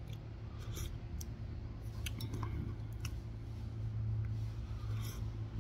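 Soup being sipped from a spoon, with a few faint light clicks, over a steady low hum.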